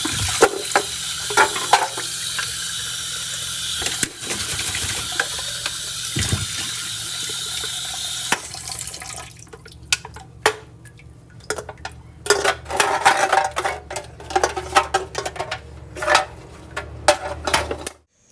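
Aluminium drink cans being cut and handled: a steady hiss with scattered clicks for about the first half, then irregular metallic clicks and clattering.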